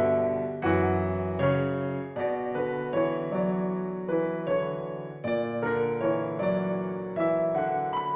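Background music: a gentle piano or electric piano piece, playing chords and a melody at a calm pace.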